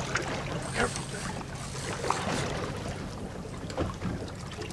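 Fishing boat's engine idling with a steady low hum.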